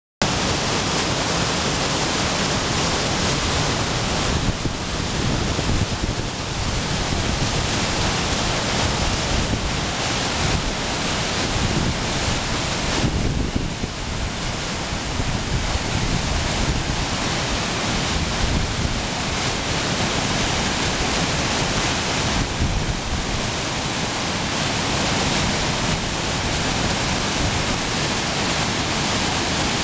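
Mountain waterfall's white water rushing and splashing over rocks close by, a loud, steady rush with only small swells and dips.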